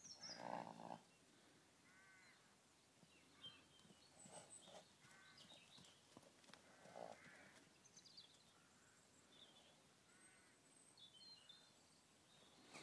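Faint crows cawing several times, spaced a few seconds apart, over near-quiet field ambience, with a short louder sound about half a second in.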